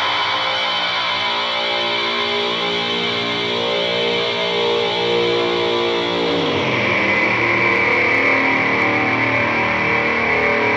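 Harsh noise music: a loud, continuous distorted drone of many held tones. About two-thirds of the way through, the tones slide down and a new set of held tones takes over.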